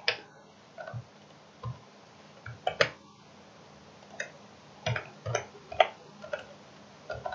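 Computer keyboard keys tapped sporadically while typing code: a dozen or so short, separate clicks at uneven intervals.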